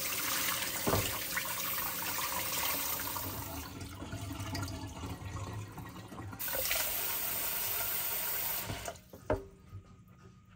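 Kitchen tap running into the sink with a steady hiss of water, shut off about nine seconds in, followed by a couple of light knocks.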